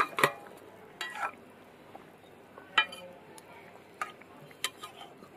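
Metal spatula and steel plate clinking and scraping against a steel cooking pot as fried hilsa pieces and green chillies are slid into a simmering curry and stirred. There are a few sharp clinks, the loudest about three seconds in, over faint bubbling.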